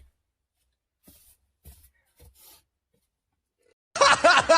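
A few faint, short rustling noises, then about four seconds in a loud voice starts abruptly.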